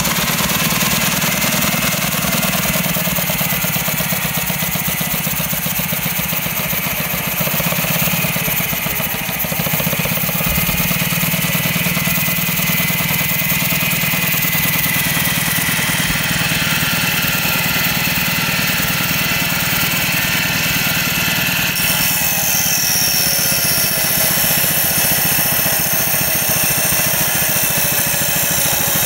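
A 3-inch scale (quarter-size) Burrell steam traction engine running steadily under steam, driving a circular saw bench by a flat belt, with a fast, even beat. A higher whine joins about two-thirds of the way through, as wood is fed to the saw.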